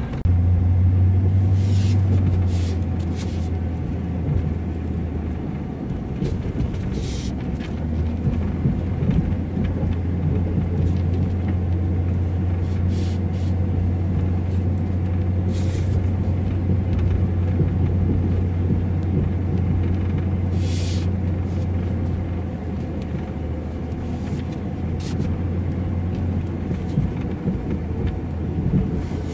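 Vehicle engine heard from inside the cab while driving slowly through snow. A steady low hum picks up just after the start, eases a little around six seconds in, then holds, with a few short knocks and rattles scattered through.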